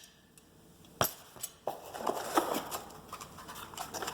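Hardware parts and packaging being handled in a box: a sharp knock about a second in, a second knock shortly after, then irregular rustling with light clinks.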